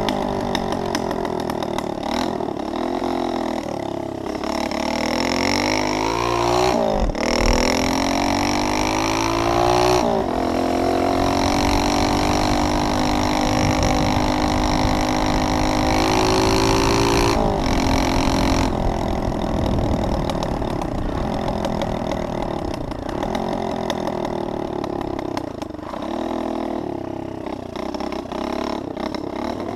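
Pit bike engine under way on a gravel trail, revving up and shifting up through the gears: its pitch climbs, drops sharply twice, then holds high and steady before easing off to lower revs a little past halfway.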